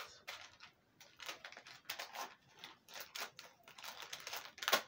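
Irregular clicking, tapping and rustling of small objects being handled, with a louder clack or rip near the end.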